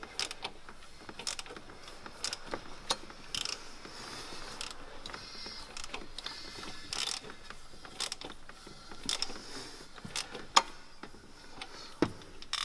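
Irregular metallic clicks and knocks from a BMW N42 engine's exposed timing chain and camshaft sprockets as the engine is turned over by hand, with a louder knock about ten and a half seconds in. The exhaust-side VANOS camshaft adjuster jumps as it is turned, the sign that it is defective.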